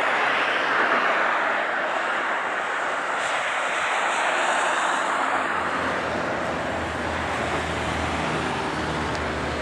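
Airbus A321 jet engines running as the airliner rolls out after landing, a loud, steady roar that eases off gradually. About halfway through, a steady low hum comes in under it.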